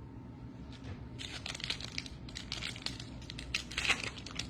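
Trading cards and their foil pack wrappers being handled: a dense run of crinkles and small sharp clicks that starts about a second in.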